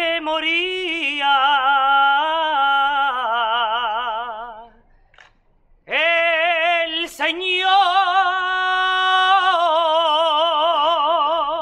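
A single voice singing a malagueña in two long, ornamented phrases with wide vibrato on held notes, with a short breath break about five seconds in.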